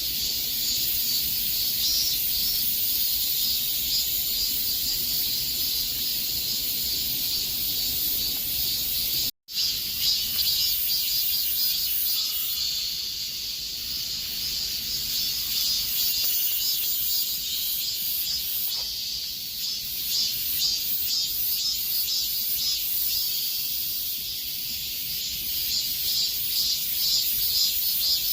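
A chorus of cicadas buzzing continuously in a high, hissing drone. It cuts out for a split second about nine seconds in, then comes back with a rapid pulsing through the rest.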